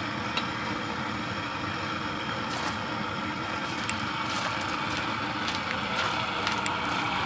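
Raku kiln's burner running with a steady rushing sound, with a few faint clicks as the hot piece is lifted out with tongs.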